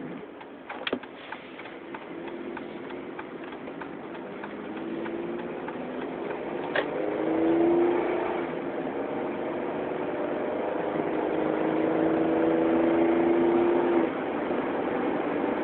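A Chevrolet 3800 (L36) 3.8-litre V6 is heard from inside the car's cabin while it accelerates: the engine note rises in pitch and grows louder, holds steady, then drops suddenly near the end. There are a few sharp clicks about a second in.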